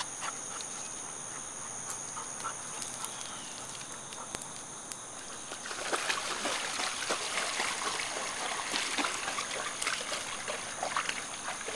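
Footsteps on the creek bank, then from about six seconds in a dog splashing as it wades through shallow creek water.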